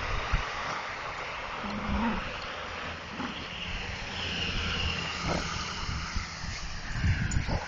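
Two dogs play-wrestling, with low rumbling play growls.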